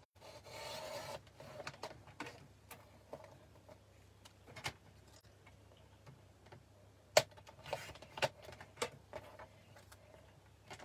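Paper trimmer cutting cardstock: the blade carriage scrapes along its rail in a short slide just under a second in and again later. Scattered sharp clicks and taps come from the trimmer and the card being repositioned, the loudest about seven seconds in.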